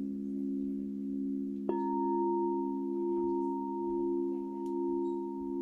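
Singing bowls ringing together in a sustained chord of several low tones, with another bowl struck about one and a half seconds in that adds a higher tone. The ringing wavers gently in loudness.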